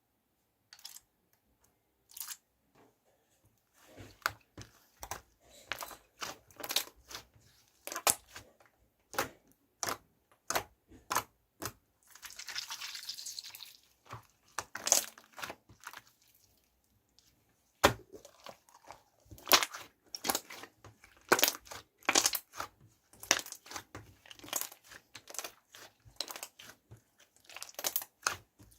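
Slime being pressed, folded and squished by hand: a rapid, irregular run of sharp pops and clicks as air pockets burst, with a longer crackling hiss about twelve seconds in.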